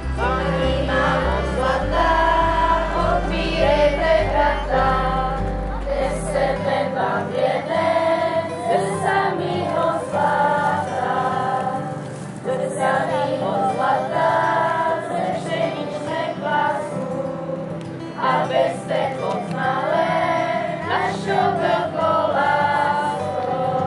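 A girls' choir singing a song to electronic keyboard accompaniment, with low bass notes from the keyboard that drop out about six seconds in.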